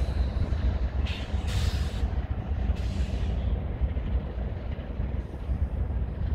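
Train running by with a steady low rumble, and a few short bursts of hiss about one to three seconds in.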